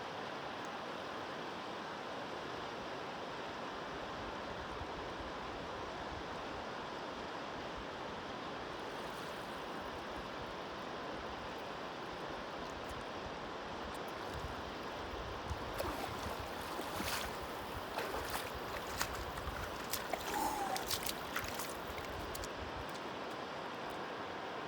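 Steady rushing of a cold mountain river. From about fifteen seconds in, irregular knocks and bumps break in over several seconds before it settles back to the even rush of water.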